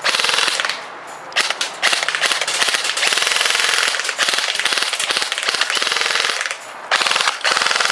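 Airsoft M4-style rifle firing on full auto, a fast rattling stream of shots. There are three bursts: a short one at the start, a long one of about five seconds, and another starting near the end.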